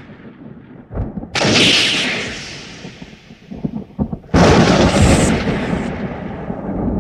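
Thunderclaps: two sudden crashes, about a second in and about four seconds in, each rumbling and fading over a couple of seconds.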